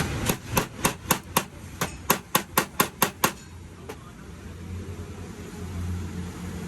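A quick series of about a dozen sharp knocks over the first three seconds, with one more a little later, like tapping with a hammer on a hard part. Then a low steady hum sets in.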